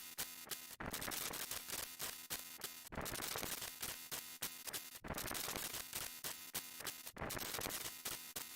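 Harsh static-like noise sound effects: a run of dense, crackling blocks, each about two seconds long, broken off by brief gaps so that a new block starts roughly every two seconds.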